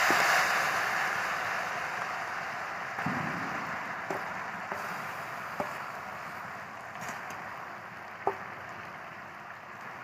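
Molten jaggery sizzling as it hits hot mustard oil and dried jujubes in a karahi, loudest at first and slowly dying down, with a few light clicks.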